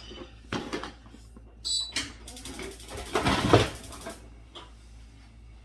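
A bag being handled and packed: short knocks and rustling, then a loud rasp lasting about two seconds around the middle.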